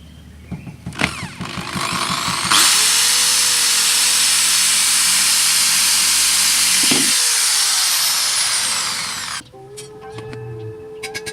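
Power drill running steadily for about seven seconds, loud and hissing, then stopping suddenly, as it drills a mounting hole for a quick release bumper fastener. Music starts near the end.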